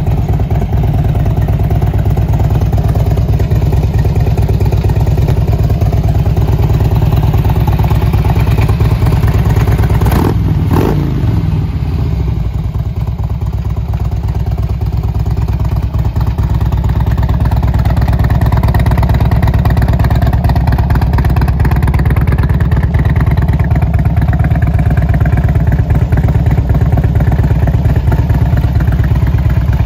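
2003 Harley-Davidson Electra Glide Ultra Classic's fuel-injected Twin Cam 88 V-twin idling steadily. Two short knocks about ten seconds in.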